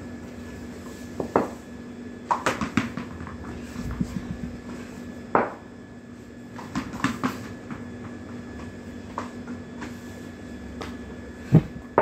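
Scattered knocks and taps of a cricket bat and shoes on a tiled floor as a batter steps out and plays a defensive shot, the loudest knock near the end, over a steady low hum.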